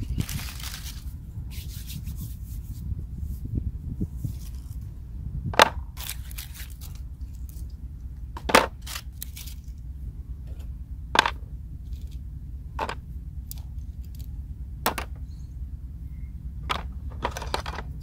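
Dry leaves crackling briefly at the start, then a series of sharp clicks and clinks every second or two as metal scissors, pliers and other tools are set down in a box. A steady low rumble runs underneath.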